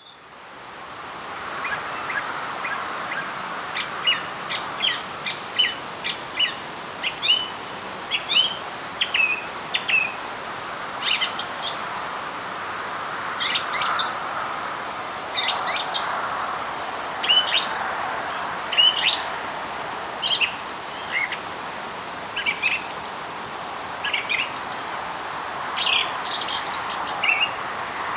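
Wild songbirds singing in spring: a steady run of short chirps and trilled phrases from several birds, over a constant faint background hiss.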